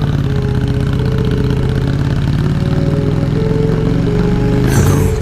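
Scrambler motorcycle engine idling steadily with a rapid, even pulse.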